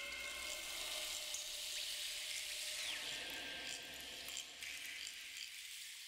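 Forest ambience: insects chirring steadily, with a few thin whistled calls, some gliding down in pitch.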